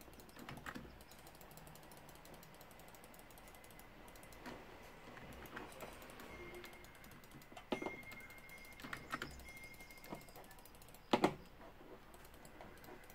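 Occasional key presses on a computer keyboard during gaming: a handful of scattered, separate clicks, the loudest about eleven seconds in.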